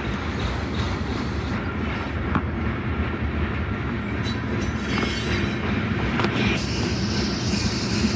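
Slow-moving freight train of autorack and tank cars rolling past: a steady rumble of steel wheels on the rails, with a few sharp clicks as the wheels pass over the rail joints.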